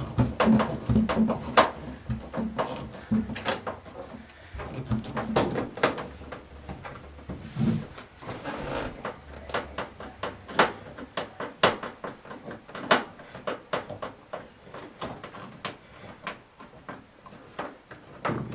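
Hand screwdriver driving screws back into the lint trap cover in the door opening of an Electrolux dryer: irregular clicks and small knocks, with handling and scraping between them.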